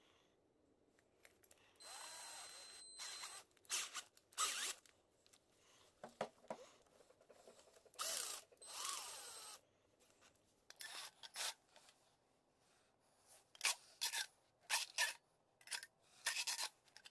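A cordless drill with a threaded steel rod in its chuck runs in two short bursts, the rod's threads rubbing. In the last few seconds come a string of short clicks and scrapes as the rod is handled and fed into a PVC pipe fitting.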